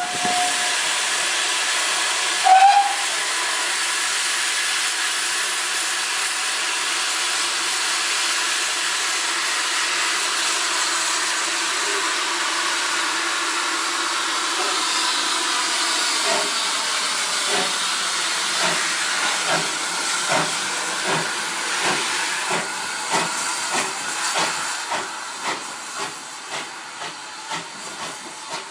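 GWR 1600 class 0-6-0 pannier tank steam locomotive letting off a loud, steady hiss of steam, with a brief whistle toot about two and a half seconds in. About halfway through, regular exhaust beats take over and fade as the engine pulls away.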